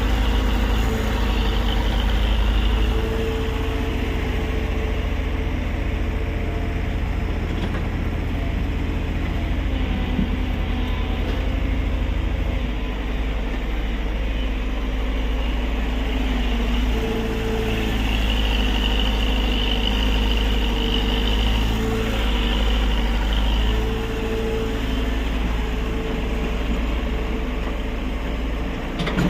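Tata Hitachi EX70 excavator's diesel engine running steadily through a dig, its note shifting a few times as the load changes, with a higher whine coming and going over it.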